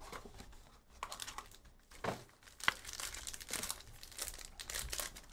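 Plastic wrapping on a trading card box and its packs crinkling as it is torn open by hand, in irregular crackles with one sharper crackle about halfway through.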